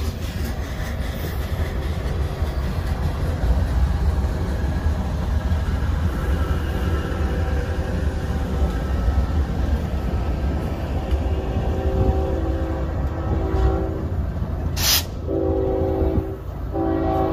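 Freight train passing close: covered hopper cars rumbling by, then a Union Pacific GE rear distributed-power locomotive, while a train horn sounds faintly in the distance from about six seconds in. After an abrupt cut about fifteen seconds in, an approaching Union Pacific locomotive sounds its horn loudly in two blasts.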